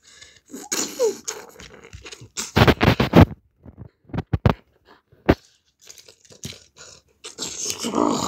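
Plastic Lego bricks and brick-built figures being handled and knocked together on a play mat: scattered clicks and scrapes, with a cluster of heavier thumps a few seconds in and a few sharp clicks after it.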